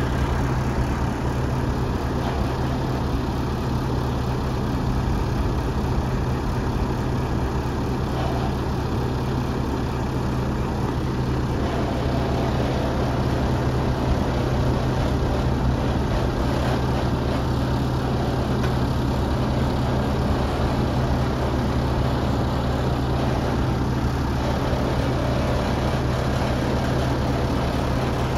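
Renault Premium truck's diesel engine running steadily at idle with a deep, even hum. It is driving the hydraulics that lower the Rolfo car-transporter's upper deck.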